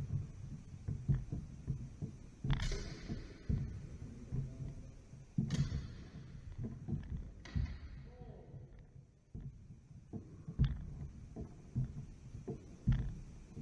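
Fencers' feet thudding and shuffling on a wooden sports-hall floor as they move in and out, with three sharp clashes of steel sidesword and dagger blades that ring briefly, a few seconds apart.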